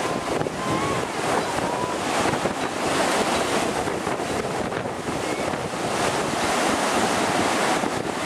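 Heavy storm surf breaking and washing in with a steady rush, with wind buffeting the microphone.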